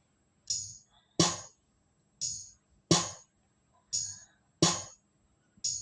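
Sparse programmed drum-machine beat with no other instruments: bright tambourine-like hits, some with a low kick underneath, falling in pairs that repeat about every second and three quarters.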